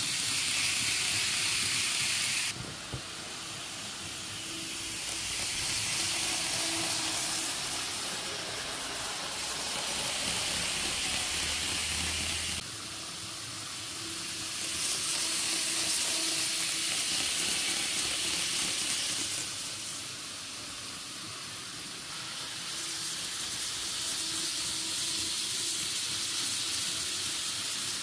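N-gauge model trains running on the layout's track: a steady hiss of wheels and motors that swells and fades several times as trains pass close by, with two abrupt drops in level, about 2.5 s in and near the middle.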